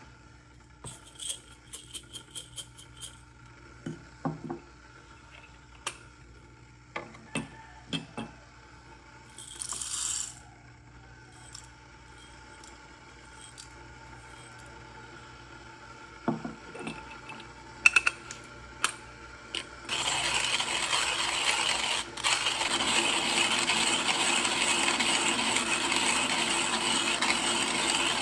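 Coffee beans clicking and rattling as they are handled and tipped into a Timemore Chestnut C2 hand grinder. About 20 seconds in, the grinder starts crushing the beans with a steady, dense grinding rattle that carries on, briefly faltering once.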